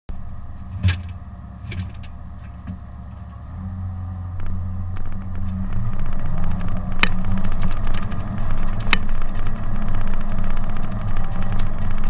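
Caterpillar D10T bulldozer's V12 diesel engine running, heard from on board the machine. About three and a half seconds in it gets louder as the throttle comes up, with a few sharp clanks along the way.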